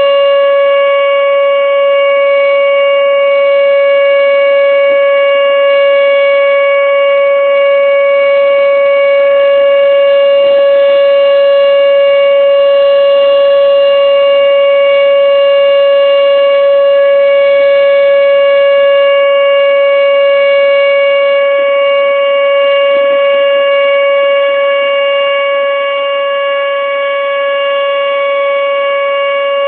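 Outdoor tornado warning siren sounding a loud, steady tone that holds one pitch, during its weekly test.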